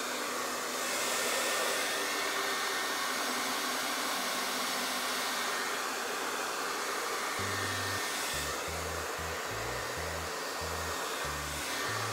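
Handheld electric hot-air blower running steadily, a continuous whooshing rush of hot air aimed at a tool box hinge to soften resin that has set in it so it can be removed.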